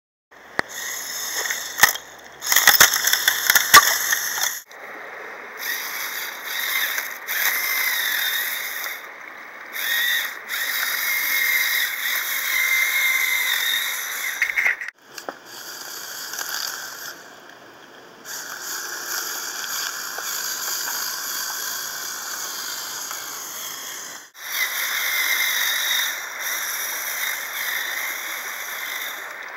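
Lego Power Functions XL electric motors and plastic gearing whining as the Lego rock crawler climbs over rocks, starting and stopping every few seconds. Sharp clicks and knocks from about two to four seconds in.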